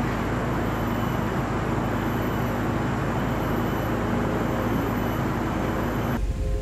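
A vehicle driving: steady engine drone and road noise at an even level. About six seconds in it cuts off abruptly and music begins.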